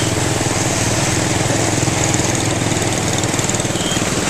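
Small motorbike engine running steadily with a fast, even putter, heard from on board while riding.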